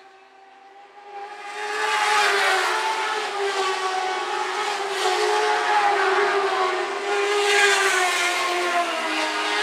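Lightning sprint cars' motorcycle engines running at high revs as the field passes in a line. The sound swells up about a second in after a brief lull and stays loud and steady, wavering slightly as the cars go by.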